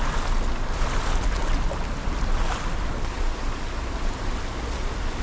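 Steady rushing of river water over rapids, with a low wind rumble on the microphone.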